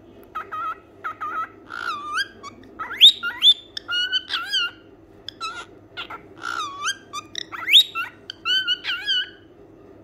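Cockatiel whistling: a run of short whistled notes and chirps that glide up and down, starting about half a second in and going on until near the end.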